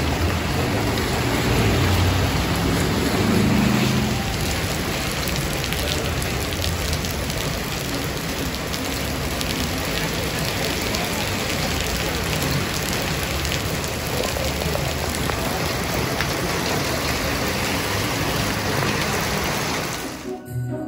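Steady heavy rain falling on wet pavement and puddles, an even hiss of spattering drops. A passing vehicle adds a low rumble in the first few seconds, and the rain cuts out just before the end.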